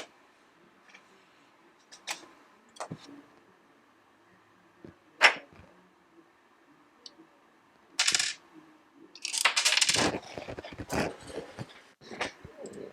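Scattered clicks and light metallic clinks of small tools being handled on a repair bench, the sharpest about five seconds in, then a few seconds of rustling, scraping clatter near the end.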